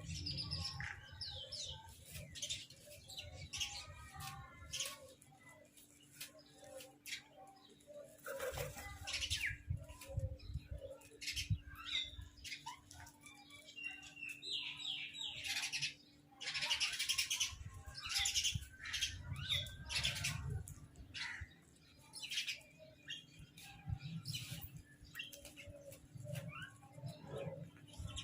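Crows calling in short, scattered bursts, with wings flapping, over a faint steady low hum.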